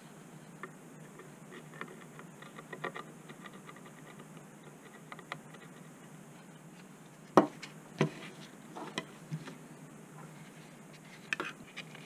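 Small clicks and light scraping as a circuit board is handled and a thin metal tool is run over its solder side, with two sharper knocks a little past halfway and a few more near the end.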